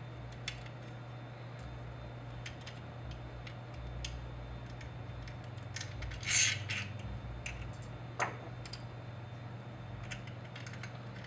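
Small parts clicking and rattling as a gasket and carburetor are fitted by hand onto a small Honda engine, with a louder scrape about six seconds in and a single knock about two seconds later, over a steady low hum.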